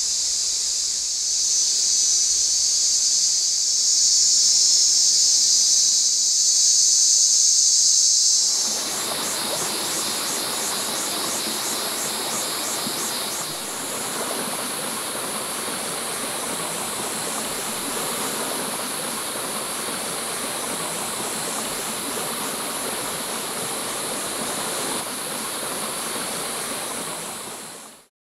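A steady, high-pitched insect chorus for the first eight seconds or so. A shallow forest stream's running water then takes over as an even rushing, with the insects still faintly pulsing above it for a few seconds; the sound cuts off abruptly just before the end.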